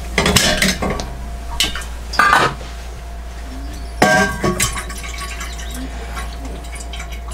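Metal kettle handled on a gas hob, clanking against the hob's pan supports in several short bursts, the loudest about four seconds in. A steady low hum runs underneath.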